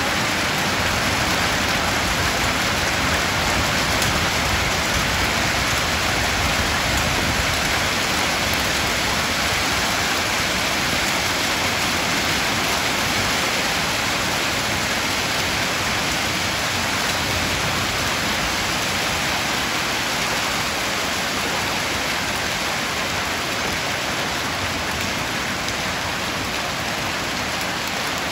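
Heavy rain mixed with small hailstones pelting a wet concrete yard: a steady, dense hiss of countless impacts.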